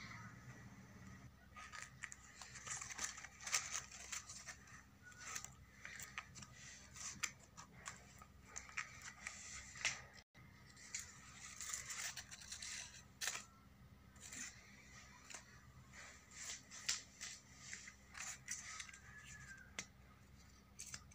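Paper rustling and crinkling as hands handle paper craft pieces: a string of light, irregular crackles, with a brief break about halfway through.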